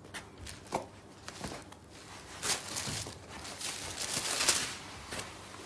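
Paper and saree cloth rustling and crinkling as hands unfold a folded saree and lift out its packing paper. The sound comes as irregular scrapes and crackles, louder about two and a half seconds in and again around four and a half seconds.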